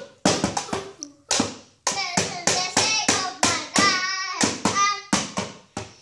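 A young boy singing a song in short, choppy phrases, with sharp tapping sounds along with it.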